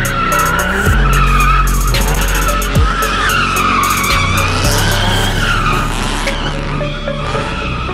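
Tyres squealing continuously with a wavering pitch as a twin-turbo VQ35 V6-swapped Lada 2107 drifts, its engine running under load beneath the squeal.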